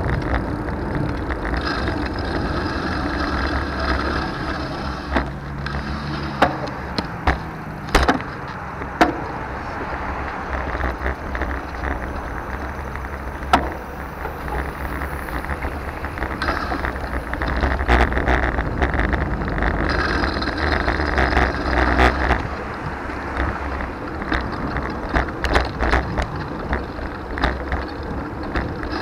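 Riding noise from a 2020 Trek Dual Sport 4 hybrid bicycle on the move: a steady rushing rumble, with sharp clicks and knocks here and there.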